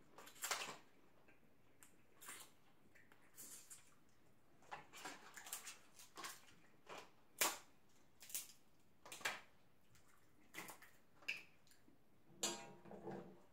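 Snow crab leg shells cracking and snapping as they are broken apart: a run of short, sharp, irregular cracks, roughly one every half second to a second.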